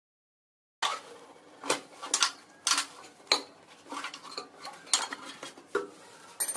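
Sharp metallic clinks and clanks of a T-handle wrench being worked on a motorcycle's bolt and knocking against its steel frame. About ten strikes come at irregular intervals, starting about a second in.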